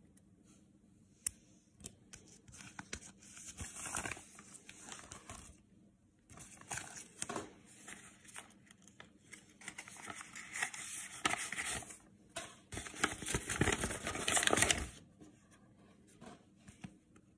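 Sports cards in plastic sleeves and rigid clear holders being handled and slid against each other, giving irregular bursts of plastic rustling and scraping. The loudest burst comes near the end, then it stops.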